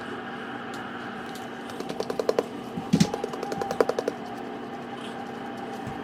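Two quick rattling runs of small clicks, about two seconds in and again a second later, with a single heavier knock between them.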